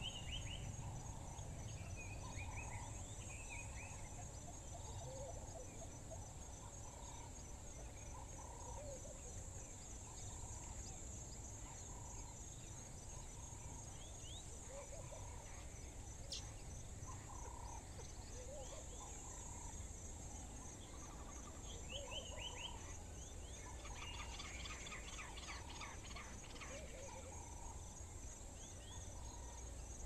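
Dawn chorus: several birds calling with short repeated notes and chirps, busier near the end, over a steady high-pitched insect drone that pulses rapidly, with a low rumble underneath. A single sharp click about sixteen seconds in.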